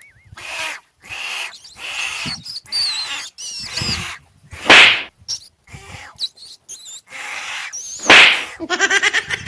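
A string of short, harsh animal calls with high chirps between them, two much louder shrieks about five and eight seconds in, and quick chattering near the end.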